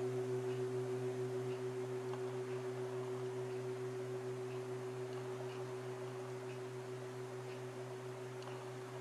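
Hand-hammered Tibetan 'full moon' singing bowl ringing out after being played: a low hum with a few higher overtones, wavering with a steady beat as it slowly fades.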